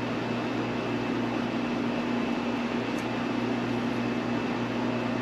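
Steady low hum with an even hiss, room background noise with no other activity. A faint click about three seconds in.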